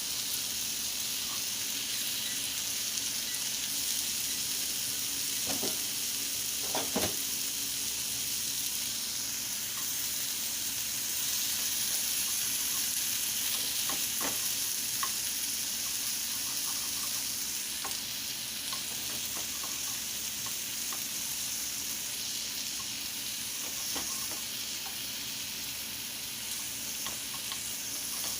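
Seasoned chicken frying, a steady sizzle with a few short clicks scattered through it.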